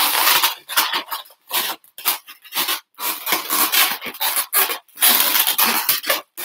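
Latex modelling balloons squeaking and rubbing against each other in irregular bursts as they are twisted and pressed into place on a balloon figure.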